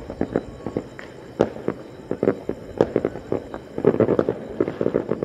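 Fireworks and firecrackers going off around the town, with sharp pops at irregular intervals. About four seconds in, a dense run of rapid crackling starts.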